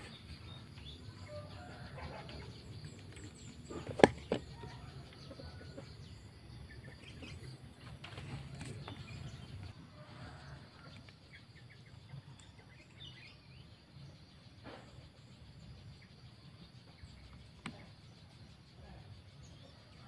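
Outdoor ambience with faint, scattered bird chirps over a steady background hiss. About four seconds in there is one sharp, loud knock with a brief ring, and two faint clicks come later.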